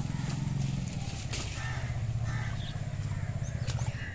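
A small engine running steadily nearby, a low pulsing drone that cuts off near the end. A few rustles and splashes from water hyacinth being handled, and faint bird chirps, lie on top.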